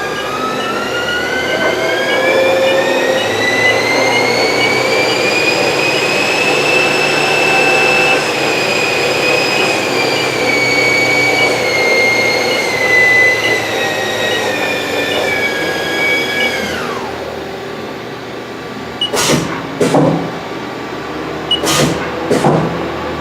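Haas ST-30 CNC lathe spindle running up to speed with a rising whine, holding near its top pitch, then spinning down, with the whine dropping away about 17 seconds in. Several sharp clunks follow near the end.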